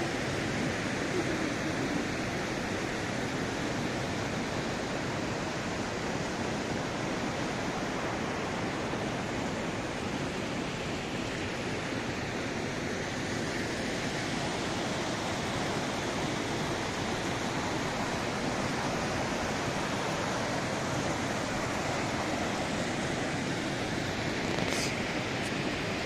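Steady rushing of a mountain waterfall and its stream of falling and flowing water. There is one short click near the end.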